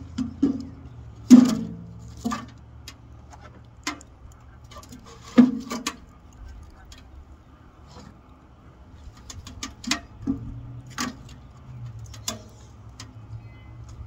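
Split firewood logs knocking against the steel firebox of a stainless-steel wood stove as it is stoked full. The loudest knocks come about a second and a half in and again about five and a half seconds in, followed by scattered lighter clicks and knocks.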